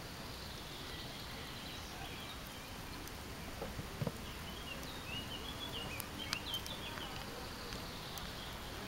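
Outdoor ambience with a steady background hiss, and a small bird chirping in short, high twittering phrases through the middle stretch. There is a soft thump about four seconds in.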